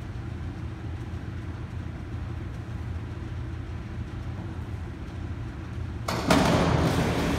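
Steady low hum of an indoor pool hall. About six seconds in, a sudden loud rush of noise comes as a diver leaves the springboard and hits the water, dying away slowly in the echoing hall.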